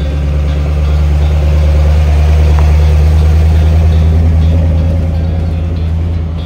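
Engine of a patina-finished 1930s Chevrolet sedan running low and steady as the car rolls slowly past. It grows louder as the car comes close and fades as it pulls away near the end.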